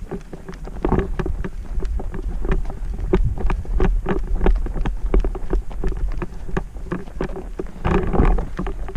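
A runner's footsteps on a trail at a steady pace of about three strides a second, heard from a camera carried on the run, over a steady low rumble of wind and handling on the microphone.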